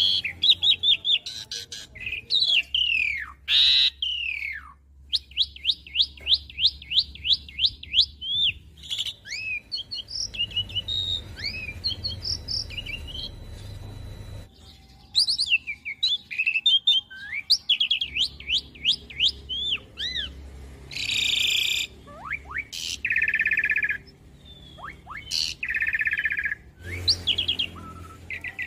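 Asian pied starling singing a long, varied song: quick runs of repeated sharp notes, rising and falling whistles, and several harsh, rasping phrases of a second or two in the last third.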